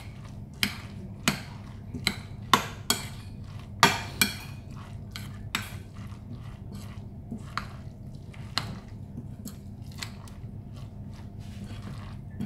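A spoon stirring coleslaw in a ceramic bowl, clinking and knocking against the bowl's side about once a second. The knocks are loudest in the first four seconds and fainter after.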